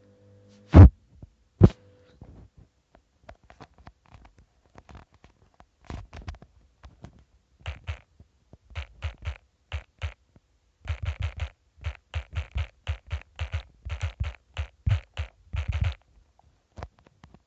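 Two sharp knocks about a second in, then a run of light, irregular taps that grow quicker and denser, several a second near the end: fingers tapping on a phone's touchscreen while typing a message.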